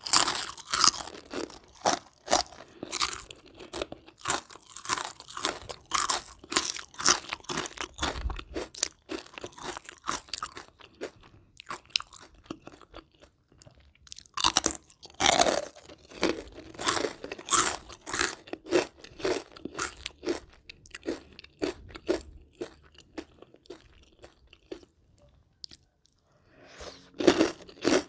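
Close-up crunching and chewing of crispy deep-fried batter, in bouts of dense crackly bites separated by short pauses.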